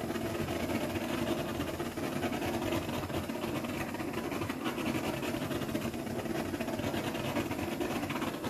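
Handheld butane torch flame hissing steadily as it is passed over wet acrylic paint.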